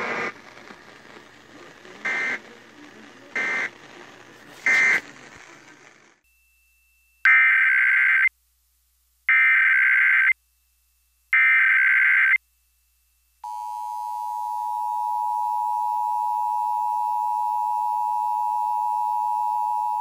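Three short Emergency Alert System end-of-message data bursts through a radio speaker with hiss, then three loud, second-long bursts of the EAS digital header, followed from about 13 seconds in by the steady EAS two-tone attention signal, opening the 2019 National Periodic Test on FM radio.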